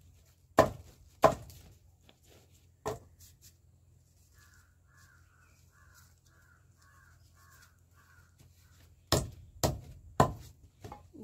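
Dry maize husks being torn and stripped by hand, giving sharp, crackly snaps: a few near the start and a quick run of them near the end. In the quiet middle, a faint bird call repeats about seven times, roughly twice a second.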